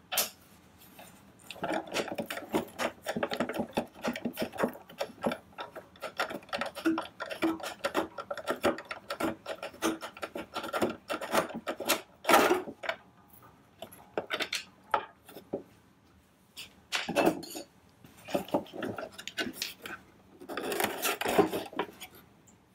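Screwdriver turning screws out of a Toro Power Shovel's plastic housing: many small clicks and scraping rubs, as parts of the housing are shifted and handled. A louder plastic clack about halfway through, and a cluster of knocks near the end as the housing comes apart.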